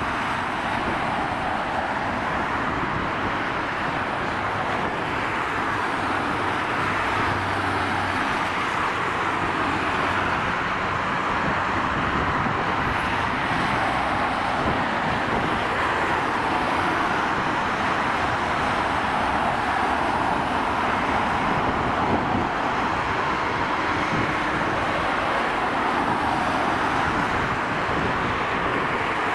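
Airbus A320-214's CFM56-5B turbofan engines running at idle thrust as the airliner taxis and turns onto the runway: a steady, even rushing hum.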